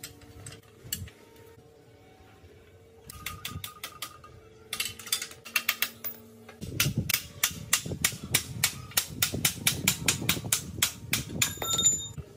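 Hand tools working on metal motorcycle parts: a few scattered sharp clicks, then from about halfway a fast, regular run of sharp metallic taps, about four or five a second, over a low rumble.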